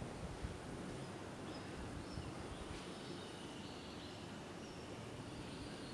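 Faint steady background noise with a few short, high chirps from birds outside.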